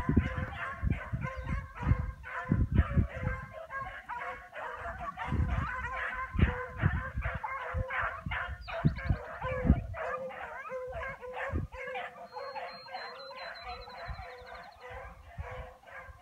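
A pack of beagles baying on a run, many voices calling over one another in a steady chorus of bawls and chops, the sign of hounds running a scent line together. The cry thins out near the end.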